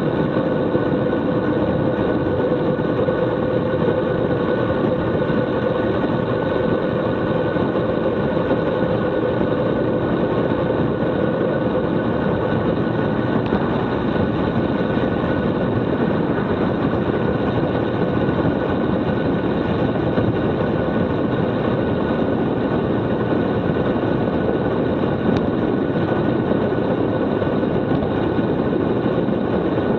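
Steady rush of wind over a bike-mounted action camera's microphone on a fast bicycle descent, with tyre noise on the asphalt and a faint steady hum underneath.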